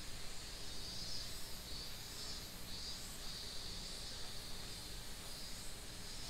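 Insects in a steady high-pitched chorus that swells and dips every second or so, over a faint low room hum.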